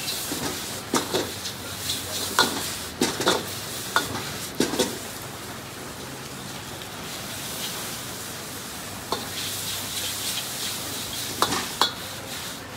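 Metal ladle clanking and scraping against a wok during stir-frying over a gas flame, with steady sizzling. The clanks come thick and fast for the first five seconds, ease off, then return a few times near the end.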